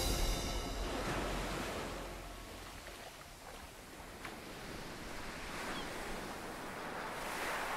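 Ocean surf breaking and washing ashore, loudest at the start, easing off in the middle and building again near the end as another wave breaks.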